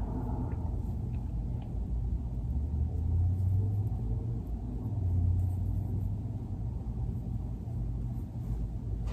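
Low steady rumble, swelling twice, about three and five seconds in.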